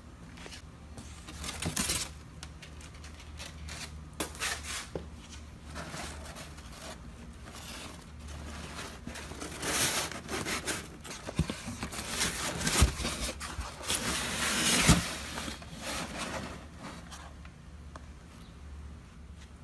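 Packaging being handled while a towing mirror is unpacked: cardboard, a foam sheet and a nonwoven fabric cover rustling and scraping in irregular bursts, with a few light knocks in the second half.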